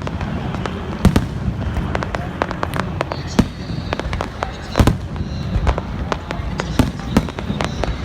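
Fireworks going off: an irregular string of sharp bangs and crackles over a continuous low rumble, the loudest about a second in and again near the middle.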